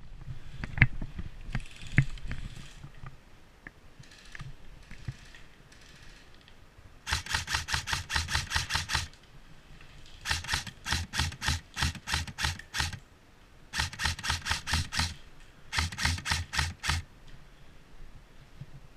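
Airsoft electric gun (AEG) firing on full auto: four rapid, evenly spaced bursts of shots, each one to two and a half seconds long, starting about seven seconds in. A few faint single clicks and rustling come before them.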